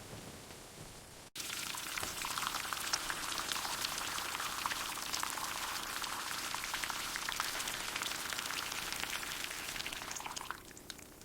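Food sizzling and crackling in hot oil, a dense steady crackle that starts abruptly about a second in and fades out near the end.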